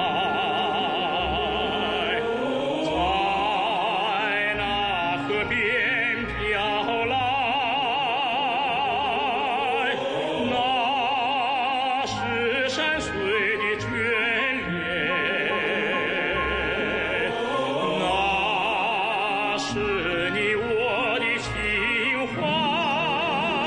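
A song in an operatic style: a singer holds long notes with a wide, even vibrato, several in turn, over instrumental backing.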